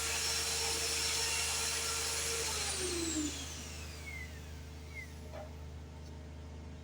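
Evolution magnetic drill's motor running steadily at speed, then switched off about two and a half seconds in, its whine falling in pitch as it winds down to a stop.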